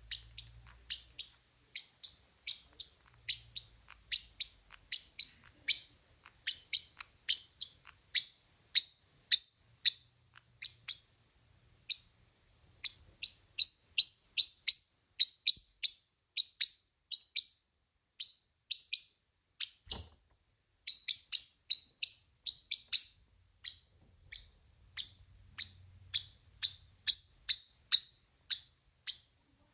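Small pet bird chirping: a long run of short, sharp, high chirps, a few a second, broken by brief pauses.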